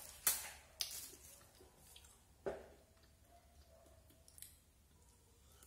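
Faint mouth sounds of someone eating a rambutan: three short sharp clicks while chewing the fruit's flesh, the loudest just after the start, then quiet.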